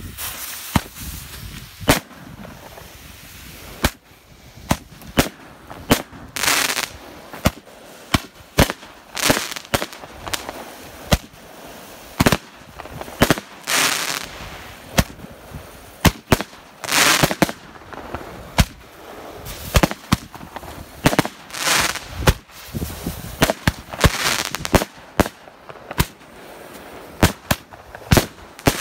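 Fireworks going off: many sharp bangs and pops at irregular intervals, with a longer whooshing burst every few seconds.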